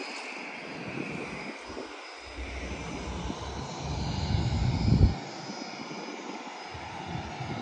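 Aircraft engines running on an airport ramp: a steady drone with a faint high whine. A low rumble swells over a few seconds and stops abruptly about five seconds in.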